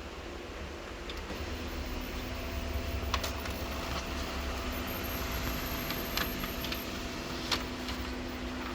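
Canon imageCLASS LBP122dw laser printer printing a page. Its mechanism starts about a second in and runs with a steady hum and a few sharp clicks. There is no grinding, since the fuser film sleeve has been freshly greased.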